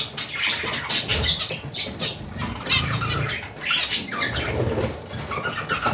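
Budgerigars chattering and warbling in quick, high, irregular chirps, with a few low thuds among them.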